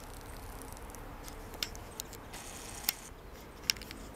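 Footsteps on a forest floor littered with dead leaves and fallen branches, with four sharp cracks underfoot spaced about a second apart, over a faint steady hiss.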